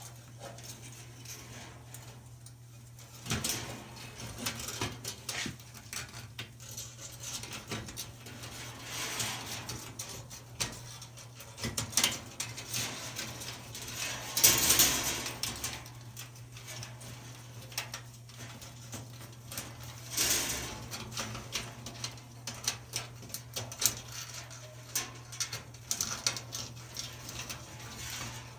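Irregular light metallic clicks, scrapes and rattles from a new coiled dryer heating-element wire being threaded around a sheet-metal element housing and its ceramic holders, with a few louder scraping passes, over a steady low hum.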